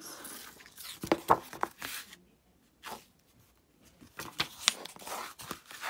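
Paperback picture book being handled: its cover and pages rustle and flap as it is turned over and opened, with a few short sharp taps and a quiet gap about halfway through.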